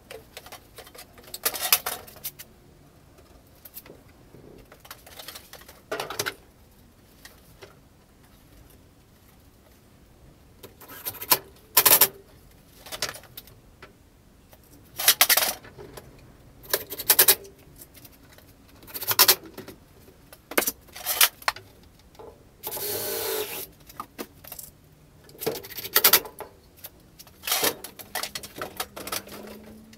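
Small plastic storage bins being handled and set on wooden shelves: scattered, irregular clicks and clattering knocks, with one longer scrape about two-thirds of the way through.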